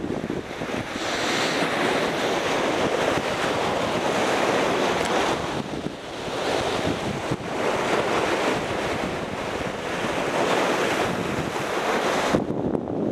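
Sea waves breaking and washing over rocks, swelling and ebbing in several surges, with wind buffeting the microphone.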